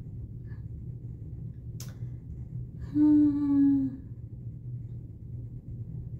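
A woman's voice giving a brief closed-mouth 'hmm', about three seconds in, lasting about a second and dipping slightly in pitch, over a steady low background hum. A single light click comes a second before it.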